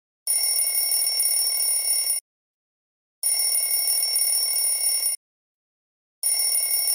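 Telephone ringing three times. Each ring is a steady, high, trilling bell about two seconds long, with a one-second silent pause between rings, and the third ring is still going at the end.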